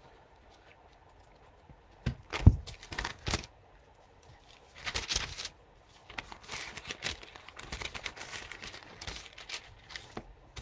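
Thin pages of a Bible rustling as they are turned, with a few soft knocks from handling the book about two to three seconds in.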